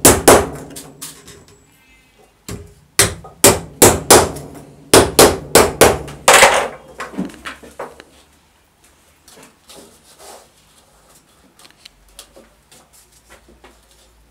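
Hammer blows on a thin bentwood sieve hoop set over a steel bar: two sharp knocks, then a quick run of about a dozen knocks over four seconds. After that only faint handling knocks and rustling as the hoops are moved about.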